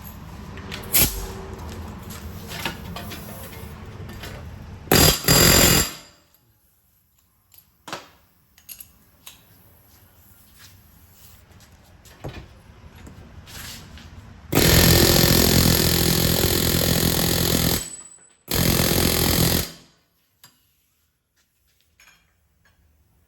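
A power tool running in three bursts: a short one about five seconds in, then a long one of about three seconds, and a shorter one just after it. Scattered clinks and knocks of metal come in the quieter stretches between.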